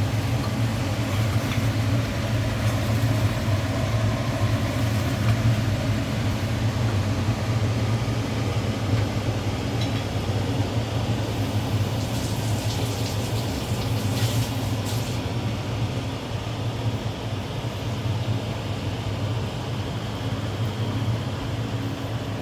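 Steady low mechanical hum, even throughout, with a few short clinks about halfway through.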